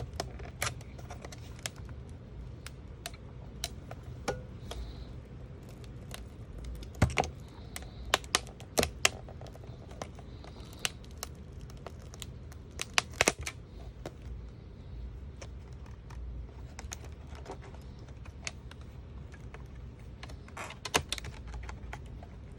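Metal pry tool clicking and tapping against the laptop's plastic display housing as the adhesive-held LCD panel is worked loose: irregular sharp clicks, with clusters of louder ones about a third of the way in and just past halfway, over a low steady hum.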